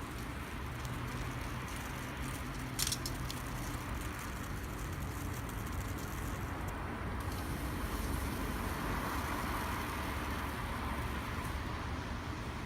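Campfire burning, with one sharp pop of crackling wood about three seconds in and a few fainter ticks, over a steady low rumble like distant road traffic.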